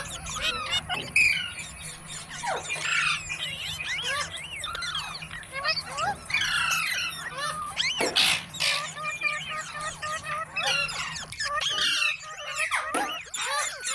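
A green parrot chattering in rapid, squeaky calls and squawks that glide up and down in pitch, with a louder harsh burst about eight seconds in.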